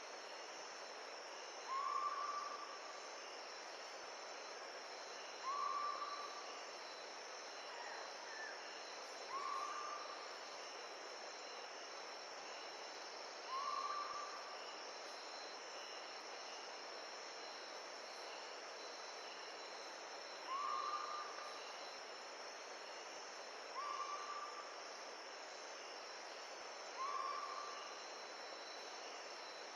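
Steady insect chorus over a soft hiss, with an animal repeating a short, slightly rising call about every three to four seconds, seven times.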